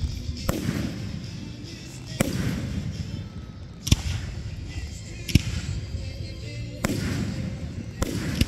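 Fireworks display: aerial shells bursting in sharp booms, about seven of them roughly a second and a half apart, each trailing off.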